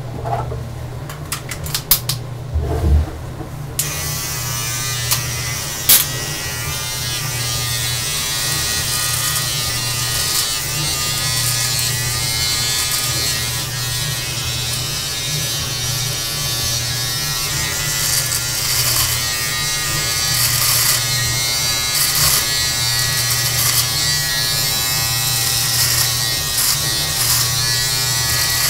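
An electric beard trimmer is switched on about four seconds in and buzzes steadily while it trims a long full beard, with brief crackles here and there. A few knocks come before it starts.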